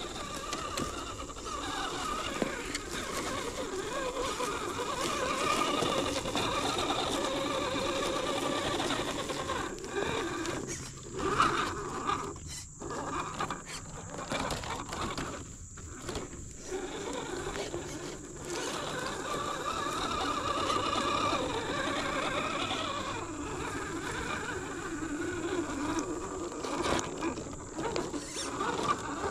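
13-turn Holmes Hobbies Crawlmaster Sport brushed 540 motor and gear drivetrain of a 1/10 scale RC crawler whining as it creeps over a course, the pitch rising and falling with throttle. The whine stops briefly a few times in the middle, over a steady faint high-pitched tone.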